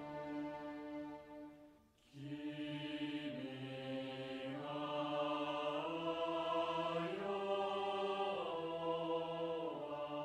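A national anthem played as recorded orchestral music with a choir singing slow, long-held notes. The music drops away briefly between phrases about two seconds in, then comes back fuller.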